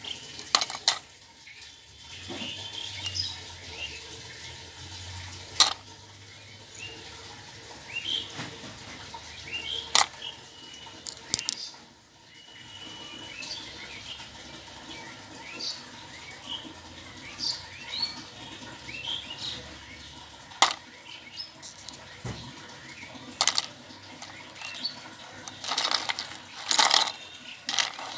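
Small hard-plastic toys clicking and knocking now and then as they are handled over a plastic basket, with a sharp click every few seconds and a cluster of them near the end. Birds chirp in short high calls throughout the background.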